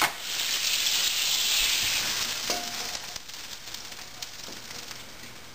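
Water sizzling and hissing in an overheated nonstick frying pan as it is lifted off the gas burner. The hiss is loudest at first and dies away over the next few seconds as the pan cools.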